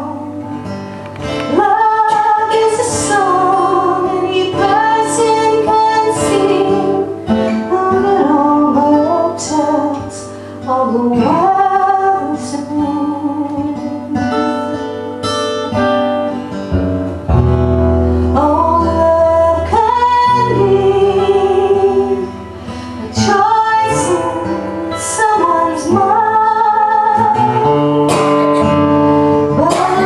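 A woman singing a folk song in phrases, accompanying herself on an acoustic guitar.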